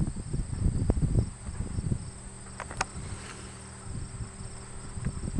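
Crickets chirping in a steady high trill, with wind buffeting the microphone in uneven low gusts and a couple of sharp clicks about halfway through.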